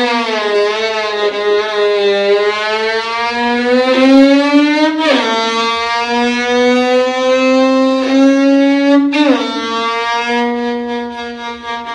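Violin bowed to imitate a racing motorcycle accelerating through the gears: the pitch climbs steadily, then drops suddenly like an upshift about five seconds in and again about nine seconds in, climbing again after each drop.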